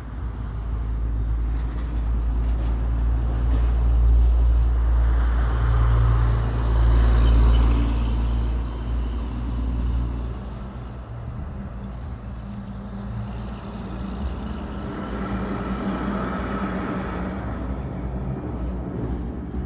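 Road vehicles passing, their noise swelling and fading twice over a steady low rumble.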